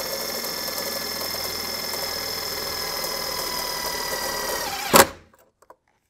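Makita cordless impact driver running a self-tapping screw into an aluminium crate rail: a steady motor whine for about five seconds, dipping slightly in pitch as the screw bites, then stopping with one sharp click.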